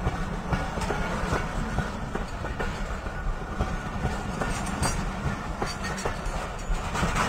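Pakistan Railways diesel locomotives running close by, a steady low engine rumble with irregular clicks and clacks from the train.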